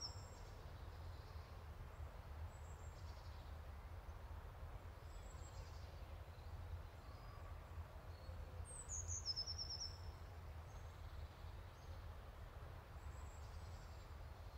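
A small songbird sings one short, high phrase about nine seconds in, sliding down into a quick trill, with a few faint high notes between. Under it runs a steady low rumble of wind on the camera trap's microphone.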